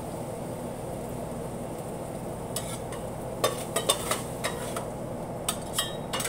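Metal spatulas scraping and clinking against a steel flat-top griddle as cooked beef is scooped off it, over a steady low background noise. The sharp clinks and scrapes come from about two and a half seconds in.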